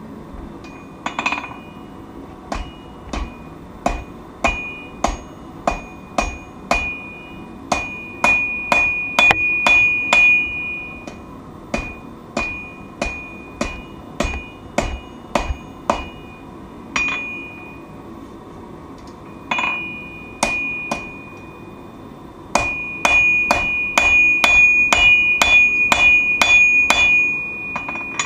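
Hammer blows forging steel on an anvil, each strike ringing with a clear metallic tone. The blows come in runs of about two to three a second with short pauses, and there is a fast, dense run near the end.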